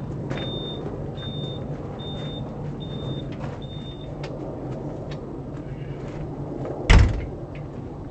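An engine idling steadily, with a high electronic beep repeating a little more than once a second that stops about four seconds in. A single loud bang about seven seconds in.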